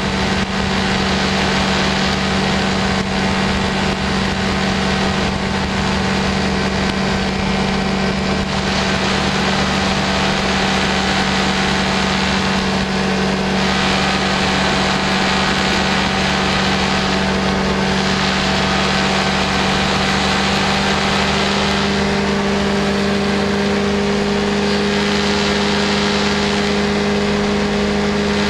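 Light aircraft's engine and propeller running steadily in flight: a constant loud drone with a steady low note, heard over rushing air noise.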